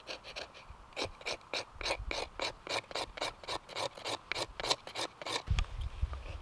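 A blade rasping on fatwood in quick, even strokes, about four a second, starting about a second in and stopping a little after five seconds in, as fire-lighting material is prepared.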